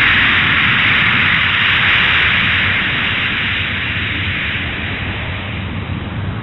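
A loud, steady hiss that slowly fades over the last few seconds.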